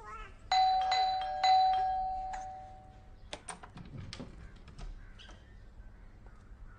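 Doorbell chime ringing ding-dong: two notes, the second sounding about a second after the first, ringing away over a couple of seconds. A few sharp clicks and knocks follow.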